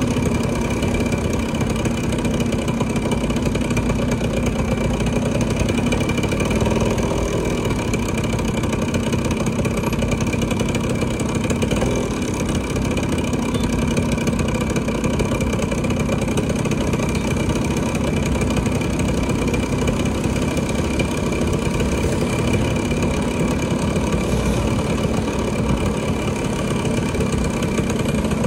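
A vehicle engine running steadily under a constant low rumble, with a steady hum that neither rises nor falls much.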